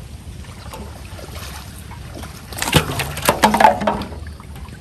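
Splashing and hard knocks for about a second and a half midway, as a freshly caught catfish thrashes at the boat. A steady low hum runs underneath.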